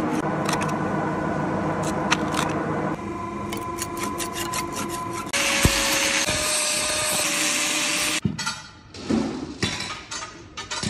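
Rust being stripped from the steel geared ring of a swing bearing: steady scraping and grinding, loudest and hissiest from about five to eight seconds in, where an angle grinder works the ring. Then scattered light metal clicks and knocks.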